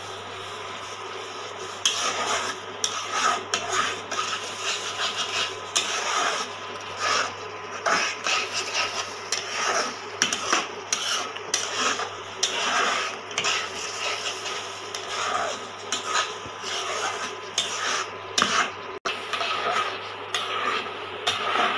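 Spoon stirring and scraping thick carrot halwa in a stainless steel pot, in repeated irregular strokes.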